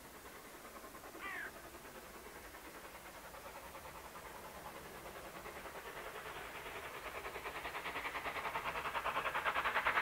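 LMS Ivatt 2MT 2-6-2 tank steam locomotive approaching under steam, its rapid, even exhaust beats growing steadily louder as it nears. A brief call is heard about a second in.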